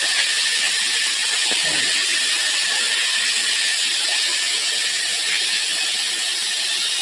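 Waterfall: water rushing and falling in a steady, even hiss.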